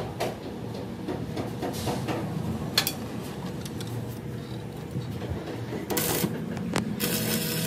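A few light knocks over a steady low hum, then an electric grinder run against a steel wheel rim in short bursts in the last couple of seconds.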